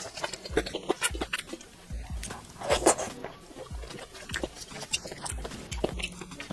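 Close-miked chewing: irregular wet mouth clicks and soft smacks as a person eats skewered food from red chili oil.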